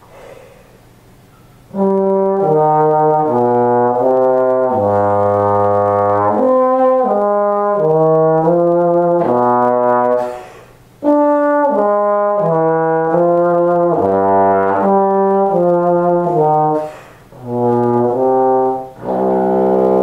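Bass trombone with a Greg Black 1G mouthpiece playing a passage of separate notes that move up and down, starting about two seconds in. There are a few short breaks for breath, one about halfway and two near the end. It is played at some distance from the microphone, so the room is heard in the sound.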